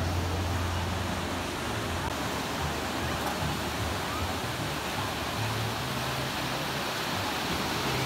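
Surf breaking and washing up a sandy beach: a steady rush of waves.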